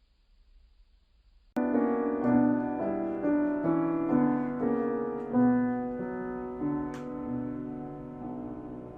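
About a second and a half of near silence, then a piano comes in suddenly with a run of notes and chords changing about twice a second, ringing on and slowly fading toward the end. A short sharp click about seven seconds in.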